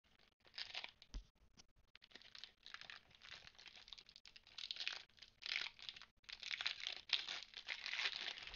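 Foil wrapper of a Pokémon trading card booster pack crinkling and tearing as it is opened by hand, in irregular rustling bursts that grow louder in the second half.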